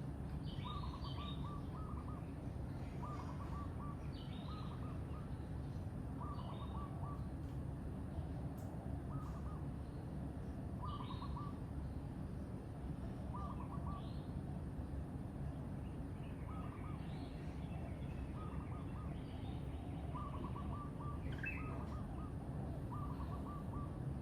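Birds calling: one bird repeats a short call of a few quick, low-pitched notes every second or two, while other birds add scattered higher chirps. A steady low rumble of background noise runs underneath.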